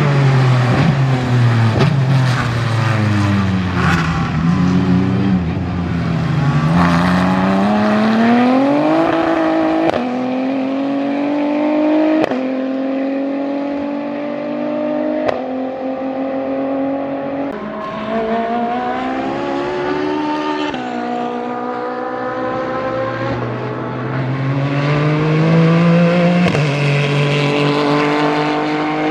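Ligier JS P4 prototype race cars' Ford 3.7-litre V6 engines at full throttle, passing and accelerating hard. The engine note climbs and then drops sharply at each upshift, several times in a row.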